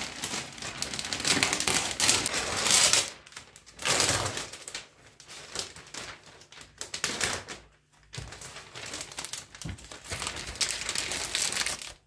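Thin clear plastic sleeve crinkling and crackling as it is handled and pulled off a potted orchid, in uneven bursts with short pauses.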